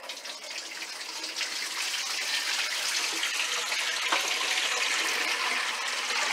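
Water running steadily, like a tap or hose, starting suddenly and growing louder over the first two seconds, then holding even, with a brief click about four seconds in.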